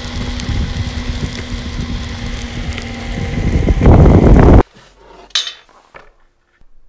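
Direct-drive electric skateboard rolling over pavement: a rough rumble from the wheels with faint steady motor tones. It grows louder and then cuts off abruptly about four and a half seconds in. A few light clicks and knocks follow.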